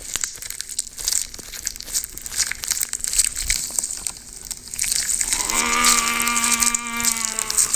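Dense, fine crackling and crinkling. From about five and a half seconds in, a steady held tone with many overtones sounds for about two seconds.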